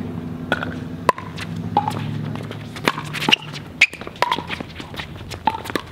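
Pickleball rally: paddles striking the plastic ball in a quick, irregular series of sharp pocks, with ball bounces and shoe scuffs on the hard court. A low steady hum underneath stops about three and a half seconds in.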